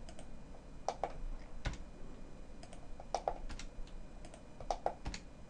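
Typing on a computer keyboard: irregular key clicks, a few at a time with short pauses between.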